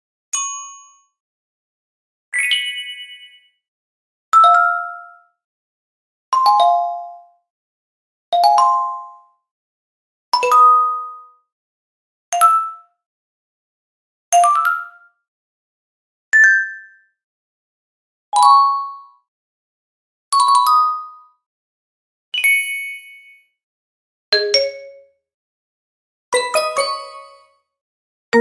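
A series of short, bright positive notification chimes, about fourteen of them, one every two seconds. Each is a different ding or quick little two- or three-note jingle that fades away fast before the next.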